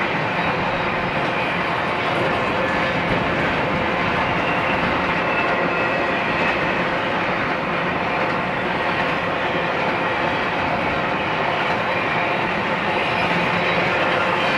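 Double-stack intermodal freight train's container well cars rolling past: a steady, even noise of steel wheels running on the rails.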